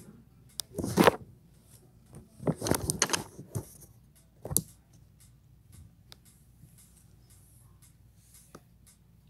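Handling noise of fleece gloves and fabric: a loud rustle about a second in, a cluster of rustling and scraping around the third second, and a sharp click shortly after. Under it, faint steady ticking, about two ticks a second.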